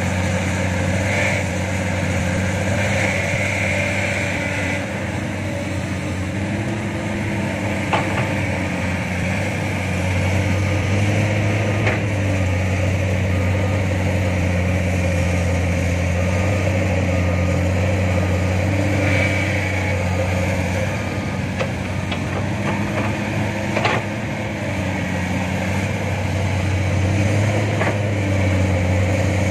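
Diesel engine of heavy earthmoving machinery running steadily with a low hum, the pitch shifting a little now and then. A few short sharp knocks sound over it.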